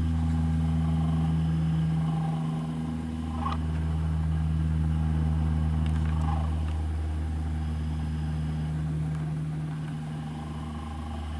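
Helicopter flying over, a steady low drone that dips a little about two and a half seconds in, swells again, then fades toward the end.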